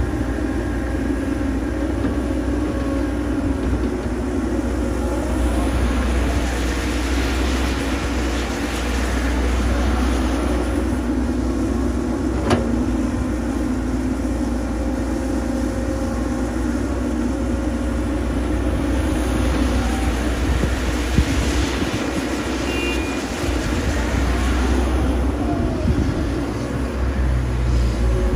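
Caterpillar 312B hydraulic excavator's diesel engine running steadily, swelling twice under hydraulic load as the bucket digs dirt, with two sharp clanks, about twelve and twenty-one seconds in.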